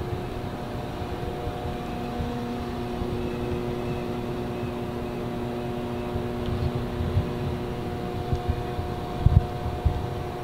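Steady mechanical hum made of several steady tones over a low rumble, with a few short low thumps near the end.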